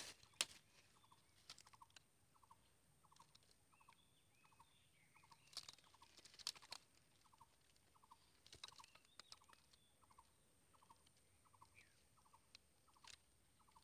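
Faint short chirps from a small creature, each a quick run of three or four clicks, repeating evenly a little more than once a second, with a few sharp rustles and snaps among them.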